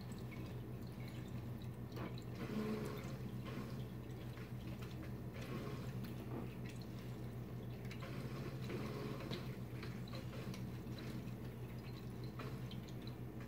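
Lemon half twisted back and forth on a plastic citrus reamer: soft, irregular squishing of the pulp and rubbing of the rind against the plastic, with a few faint clicks, over a steady low hum.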